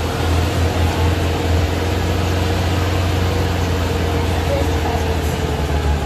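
Off-road vehicle's engine running steadily as it drives along a muddy dirt track, heard from on board: a constant low rumble with a steady noise of the drive over it.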